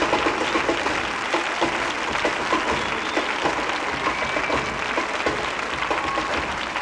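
Large audience applauding steadily, a dense mass of hand claps.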